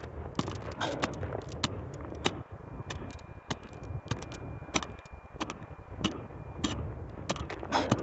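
Small hand pick (talacho) chopping and scraping into forest soil and pine-needle litter: a quick, irregular run of strikes, digging out a metal-detector target.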